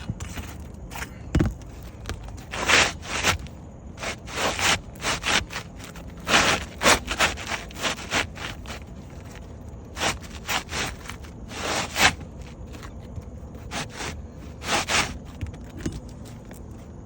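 Irregular scraping and rustling strokes of work on an asphalt shingle roof, a dozen or more short rasps at uneven intervals.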